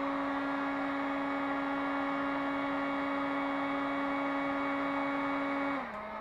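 Handheld electric heat gun running steadily, its fan and motor giving a constant whine, blowing hot air onto a sheet of plasticard to soften it for forming. Near the end it is switched off and the pitch sinks as the fan winds down.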